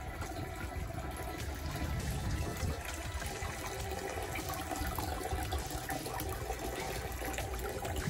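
Water pouring steadily from a bamboo spout into the stone basin of a temple purification fountain (temizuya), splashing onto the water in the basin.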